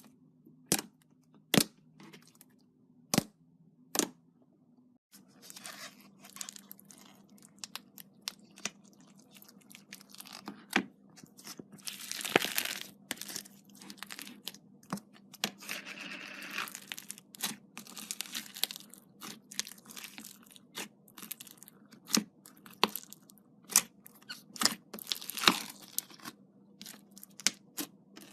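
Slime being played with by hand. It starts with a few sharp, separate pops about a second apart, then changes into dense crackling, crunching and tearing.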